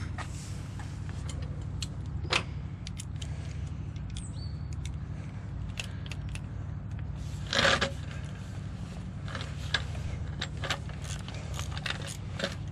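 Hand tools clicking and rattling on a diesel EGR valve as it is unbolted from the plastic inlet manifold, with a louder clatter about seven and a half seconds in. A steady low hum runs underneath.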